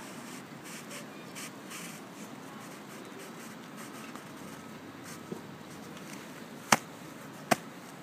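Faint, soft crunching of snow as a plastic graduated cylinder is pushed slowly down through deep, fluffy snow to take a core sample, then two sharp clicks about a second apart near the end.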